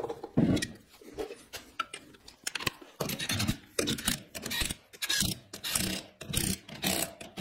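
Car wheel being hung on the hub studs with metal clinks and scrapes, then lug nuts being run down with a cordless ratchet in short whirring spins, one after another through the second half.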